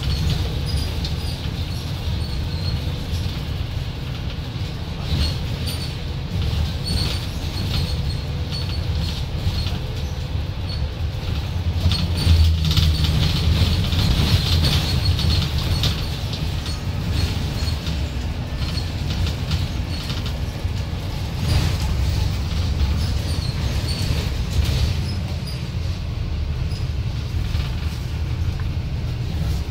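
Dennis Trident double-decker bus engine pulling hard from a stop, heard inside the bus as a loud low drone that swells twice, with rattling and clicking from the bus body throughout.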